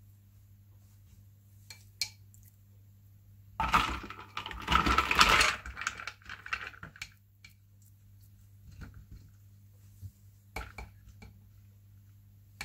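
Kitchen utensil and dishes clinking: scattered light clinks, with a dense clattering, scraping stretch of about two seconds a little before the middle.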